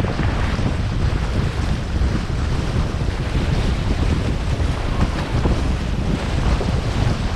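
Wind buffeting the microphone over seawater churning and splashing as horses wade through shallow surf.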